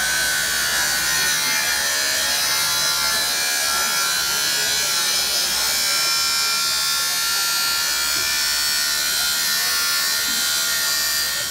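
Angle grinder cutting steel channel, a steady loud grinding with a constant high whine; the cut throws heavy sparks and makes the metal very hot.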